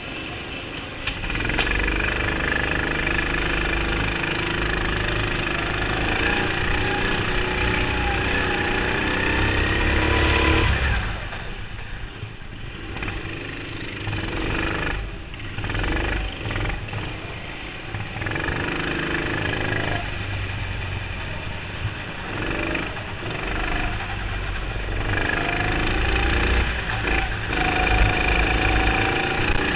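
Go-kart engine heard on board, pulling away and accelerating with a pitch that climbs for several seconds. About eleven seconds in it drops off into choppy on-and-off throttle through the corners, then climbs again under acceleration in the second half.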